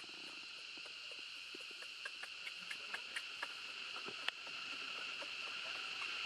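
Steady high-pitched drone of insects, with a scattering of small clicks in the middle and one sharper click a little past four seconds in.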